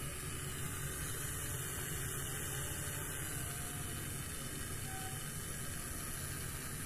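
Homemade mini fogging machine driven by a small Tamiya DC motor, running steadily on batteries: a constant low hum with a hiss over it.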